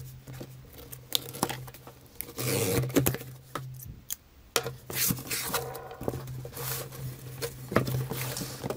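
Packing tape on a cardboard shipping box being slit with a small knife and the box opened: tearing and scraping of tape and cardboard, flaps folding back, with many short taps and knocks of cardboard being handled.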